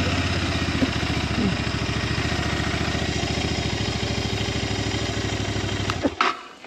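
Bajaj Pulsar NS200 motorcycle's single-cylinder engine running steadily at an even pulse, then cutting off abruptly about six seconds in, followed by a couple of sharp knocks.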